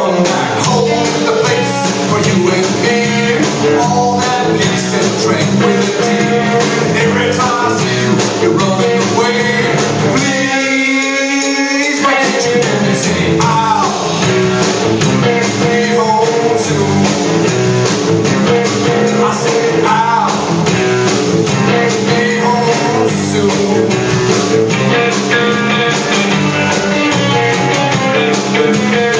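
Live blues-rock band playing: electric guitars, bass guitar and drum kit driving a steady upbeat groove, with a long held note about ten seconds in.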